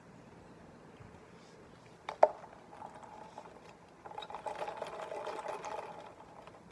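A sharp click about two seconds in, then about two seconds of a drink being sucked up through a straw from a plastic cup, a gurgling, rattling slurp of liquid and air.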